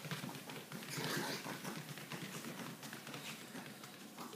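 A Maltese dog's paws tapping and scuffing on a yoga mat in quick, uneven steps as it moves about, with a short scuffing swell about a second in.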